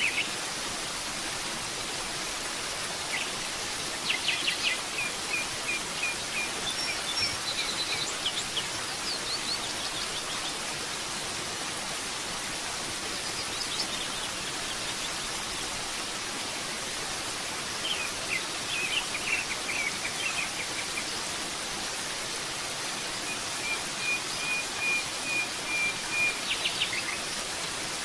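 Steady rush of a forest waterfall, with songbirds calling over it in spells of quick high chirps and, near the end, a long even trill of repeated notes.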